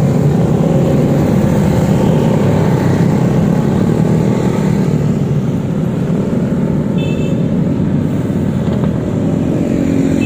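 Steady road noise of motorcycles and scooters running past in traffic. There is a brief high-pitched tone about seven seconds in.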